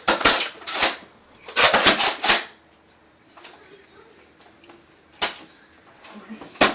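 Sharp plastic clacks of Nerf blasters being primed and fired: two quick flurries of about four clacks each in the first two and a half seconds, then single clacks about five seconds in and near the end.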